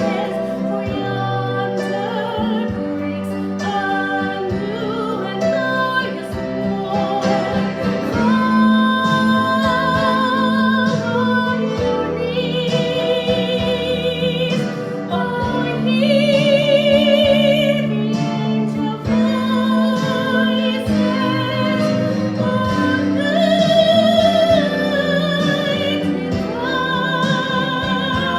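Singing in a classical style with wide vibrato on long held notes, over instrumental accompaniment.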